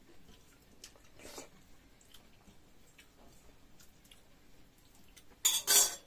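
A person eating and chewing food, with faint small mouth clicks. About a second in there is a soft burst, and near the end two loud, short noisy bursts follow close together.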